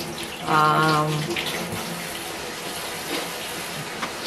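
Water running steadily, with a brief held voice sound about half a second in.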